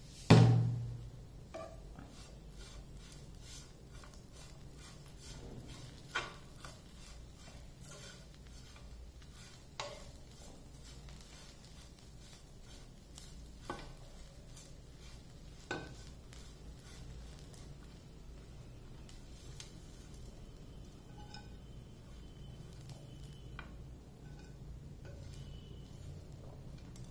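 Steel spoon stirring and scraping bread upma in a nonstick kadai, with a sharp clank against the pan right at the start and a few lighter taps on the pan spread through.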